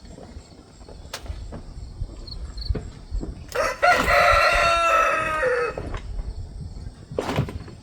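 A rooster crowing once: a single long call of about two and a half seconds, starting about three and a half seconds in. A few faint knocks are heard around it.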